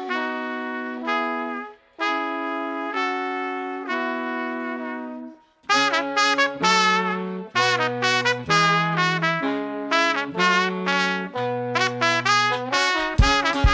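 Brass band playing: trumpet and trombone hold two sustained chords, each cut off short, then a quicker tune starts about halfway in over a low bass line from the bass saxophone, with sharp percussive hits near the end.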